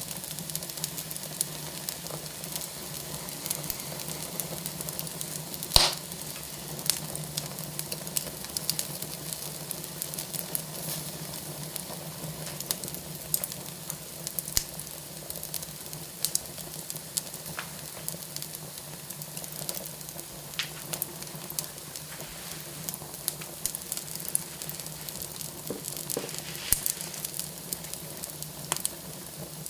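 Fire burning in a fireplace, crackling and hissing with frequent sharp pops, one louder pop about six seconds in.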